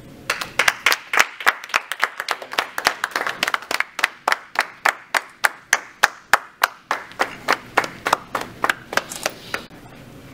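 A small audience applauding, with one clapper close by giving sharp, steady claps about three to four a second over fainter clapping from others; it dies out about a second before the end.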